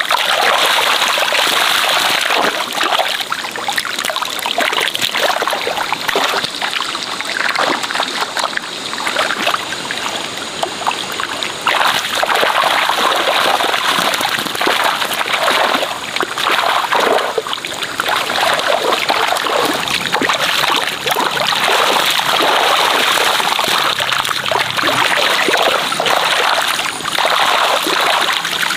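Shallow muddy water splashing and sloshing as a person wades and scoops fish with a round hand net, many small irregular splashes one after another.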